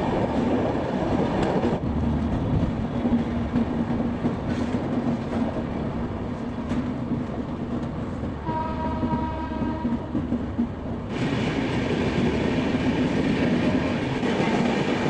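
Passenger train running, heard from an open coach door: a steady rumble of wheels on the track and rushing air. A train horn sounds once, held for about a second and a half, about eight and a half seconds in.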